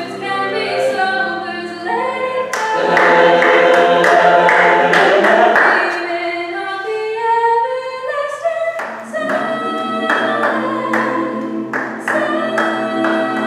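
Mixed a cappella ensemble singing sustained chords under a female solo voice, with one line gliding upward about halfway through. A steady beat of sharp clicks, about two a second, runs under the voices for much of it.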